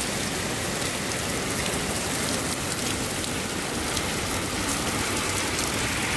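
Heavy rain mixed with small hail pelting wet asphalt: a steady hiss of rain dotted with many quick, sharp ticks of hailstones striking.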